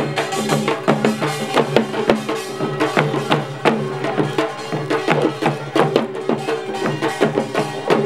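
Korean pungmul percussion: small hand drums (sogo) and a kkwaenggwari small gong beaten in a fast, dense rhythm.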